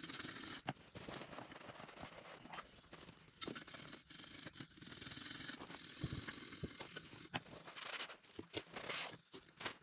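Stiff bristle brush scrubbing rust and debris out of a pool pump motor's housing: a continuous scratchy rasping in uneven strokes, with a few light clicks.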